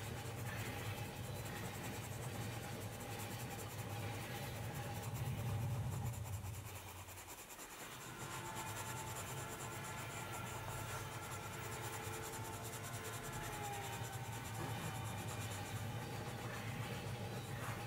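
A Polychromos coloured pencil scratching across sketchbook paper as it shades, over a steady low rumble of train-ride ambience. The rumble dips briefly about seven seconds in.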